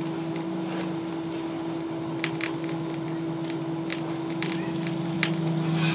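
Coal forge with sparse sharp crackles and clicks over a steady low hum.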